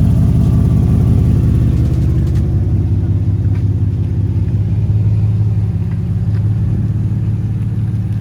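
Car engine idling with a steady, low exhaust rumble.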